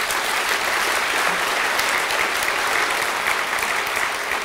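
Audience applauding: a dense, even clapping from a full hall that holds steady throughout.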